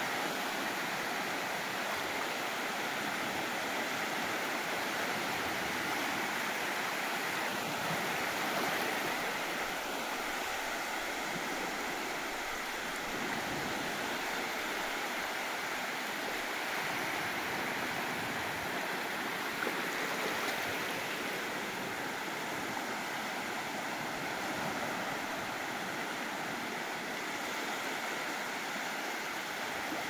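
Sea waves washing onto a beach: a steady, unbroken rush of surf.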